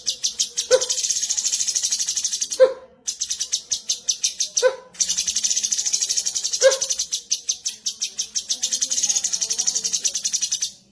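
Cucak cungkok song: a rapid high-pitched chattering trill, broken by two short pauses, with a short lower note dropping in pitch about every two seconds, four times.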